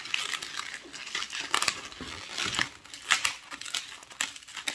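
Latex 260 modelling balloon being twisted by hand into small bubbles, the rubber rubbing and squeaking against the fingers in short, irregular bursts of sound.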